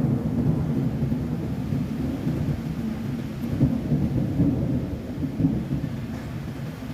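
Thunder rumbling low and rolling in swells during a rainstorm, easing off slightly near the end, with rain hissing faintly underneath.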